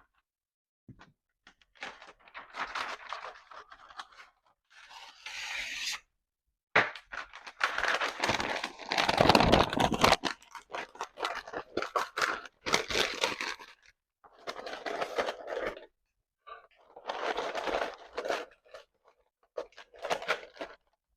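Paper being crumpled and stuffed by hand, crinkling and rustling in a series of bursts a second or two long with short pauses between, busiest around the middle.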